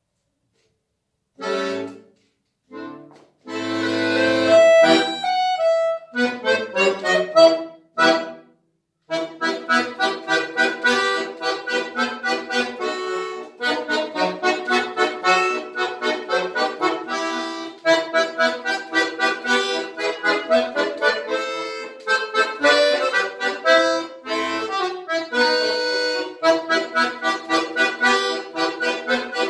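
Jupiter bayan (Russian chromatic button accordion) played solo. After a moment of quiet, a piece opens with a few short chords and a held chord. From about nine seconds in it moves into a steady run of short, detached notes, several a second.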